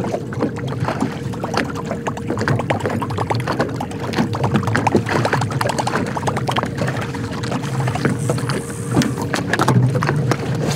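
Small waves lapping and slapping against the hull of a fishing boat, in many short irregular splashes, with a faint steady hum underneath.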